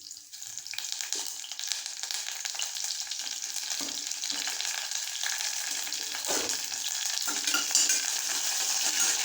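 Whole spices (cinnamon, cloves, cardamom, star anise) and curry leaves sizzling in hot sesame oil for a mutton curry. The sizzle comes up within the first second, then stays steady.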